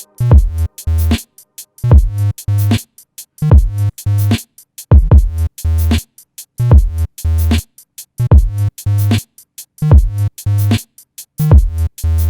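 Electronic background music: a heavy drum-machine beat with deep bass hits in short repeating groups and brief silent gaps between them.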